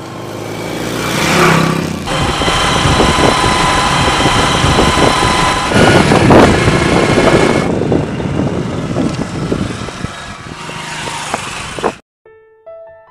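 Motorcycle engine running as the bike rides past, loudest about a second and a half in, then steady engine and road noise while riding. It cuts off abruptly shortly before the end, where soft piano music begins.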